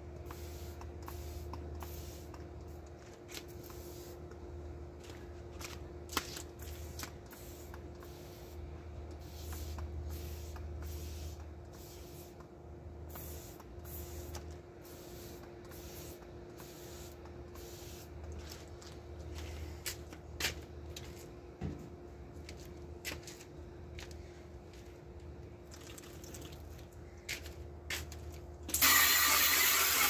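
Trigger spray bottle squirting cleaner onto a window air conditioner's case in many short squirts, over a steady low hum. Near the end a garden hose spray nozzle opens up with a sudden loud hiss of water hitting the case.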